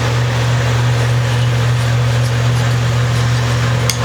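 A steady low hum with a hiss over it, unchanging, and a couple of faint light ticks near the end.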